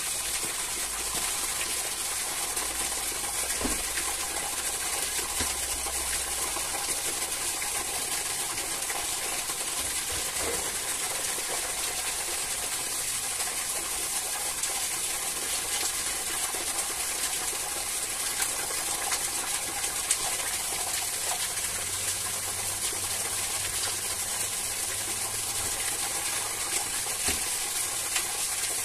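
Steady rushing, hissing noise like running water, with a few faint knocks.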